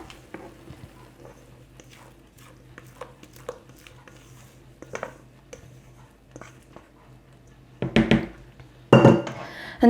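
Faint scraping and small clicks of a spatula working cake batter from a bowl into a cake pan, followed by two louder knocks near the end.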